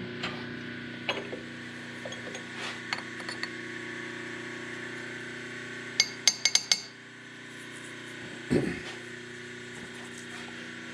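Metal tools and parts being handled on a workbench: scattered light taps, a quick run of about five sharp metallic clinks about six seconds in, and a duller knock a couple of seconds later, over a steady hum.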